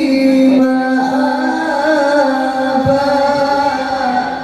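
A male qari reciting the Quran in the ornamented, melodic tilawah style into a microphone, holding one long note with a wavering, trilled pitch.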